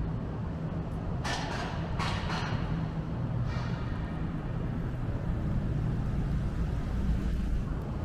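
City road traffic: a steady low rumble of vehicles, with a few brief hissing swells in the first few seconds as vehicles pass.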